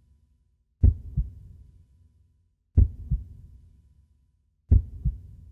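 Heartbeat sound effect: three slow double thumps (lub-dub), low and deep, the pairs about two seconds apart.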